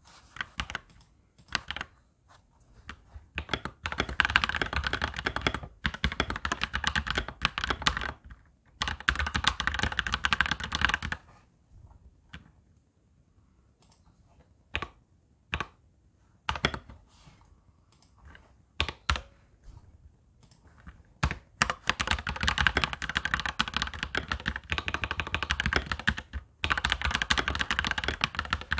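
Touch typing on a Royal Kludge mechanical keyboard: fast runs of clacking keystrokes broken by pauses with a few scattered single key presses, the longest run starting about two-thirds of the way through.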